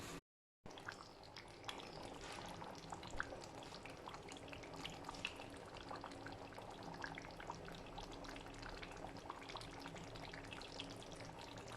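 A pot of food bubbling on the fire: faint, irregular popping and crackling of boiling liquid, with a brief dropout near the start.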